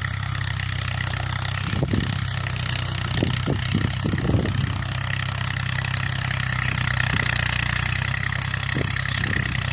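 Farm tractor engine running steadily at a low, even speed, as at idle.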